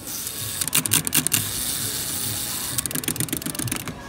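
Small plastic clockwork wind-up toy running: its spring-driven gears click in quick clusters, with soft tapping as it moves on the board.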